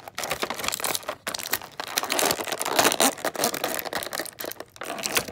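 Clear plastic action-figure packaging crinkling and crackling loudly as it is handled and the figure is pulled out of it, a dense run of irregular crackles that peaks about halfway through.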